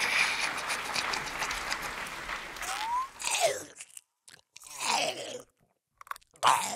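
Chewing and crunching sound effect of a creature eating sausages: continuous greedy munching for about three and a half seconds, then a few shorter chewing bursts with silent gaps between them.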